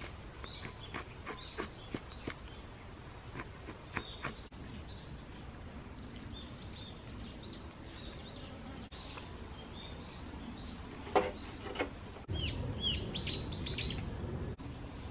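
Small birds chirping repeatedly in the woodland, with a knife working kindling sticks: a quick run of sharp clicks over the first four seconds. A sharp knock comes about eleven seconds in, then louder rustling as twigs are handled in a metal fire pan.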